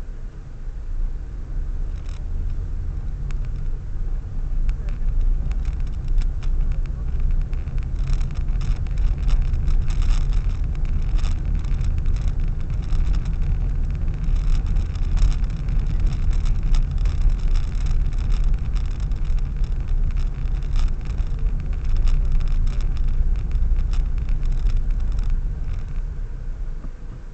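Car being driven, heard from inside the cabin: a steady low rumble of engine and tyres with many faint ticks and rattles. It grows louder about a second in and falls away near the end.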